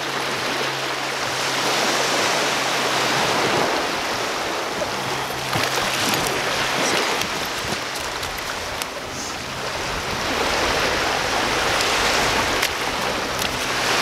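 Small waves washing onto a pebble beach, the sound swelling and easing every few seconds.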